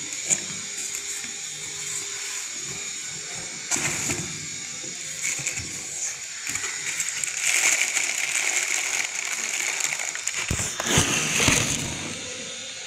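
A cardboard box being opened and handled: flaps and cardboard rustling and scraping, with a few knocks. From about halfway on there is denser crinkling of the plastic bag wrapped around the fan.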